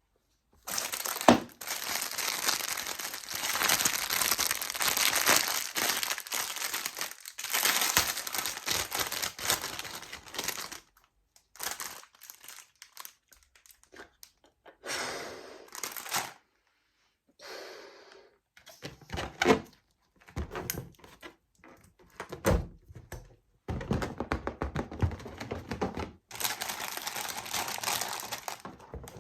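Crinkly plastic wrapping being handled and torn: a steady crackling rustle for about ten seconds with a sharp knock near the start, then short separate rustles and knocks with pauses between.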